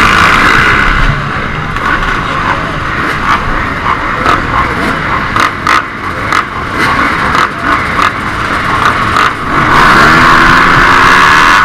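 Dirt bike engine running hard, loudest at the start and again from about nine and a half seconds in, where its pitch climbs as it revs up. In between it eases off amid a series of sharp knocks and clacks.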